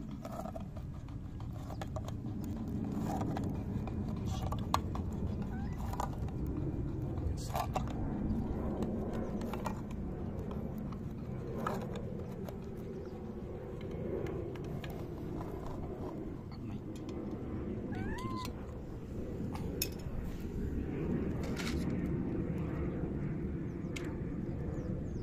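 Stray tabby cats meowing now and then with short calls, one rising call about 18 seconds in. Scattered sharp clicks run through it, from cats crunching dry kibble, over a steady low background rumble.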